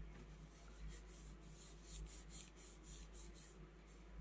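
Hands rubbing and smoothing a patterned paper panel down onto a kraft cardstock base: a quick run of faint, hissy rubbing strokes, about three a second, that stop near the end.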